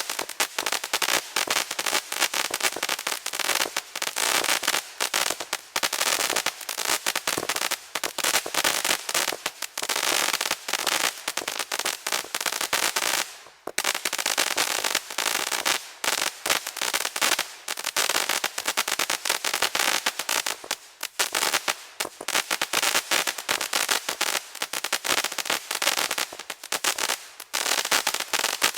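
A 200-gram consumer fireworks cake firing continuously, its shots breaking into dense, unbroken crackle, with a brief lull about halfway through.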